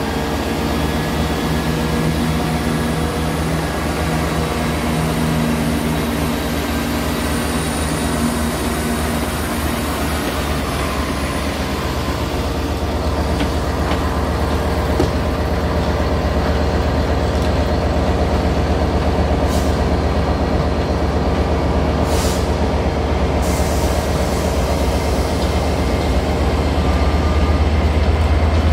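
CrossCountry Class 170 Turbostar diesel multiple unit pulling out, its engines giving a steady drone that fades over the first ten seconds or so. Toward the end a second train's low rumble grows louder.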